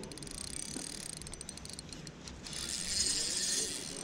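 Spinning reel whirring as it is cranked, in two runs, the second louder about three seconds in.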